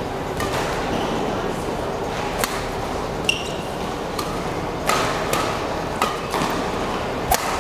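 Badminton rally: sharp racket hits on the shuttlecock, about six of them and the last the loudest, and a short high shoe squeak on the court floor, over a steady murmur from a large crowd in a hall.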